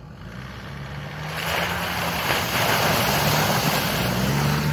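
A 4x4 SUV engine running steadily as the vehicle fords a shallow stream, with water splashing and sloshing around its wheels. It grows louder as the vehicle approaches and passes close by.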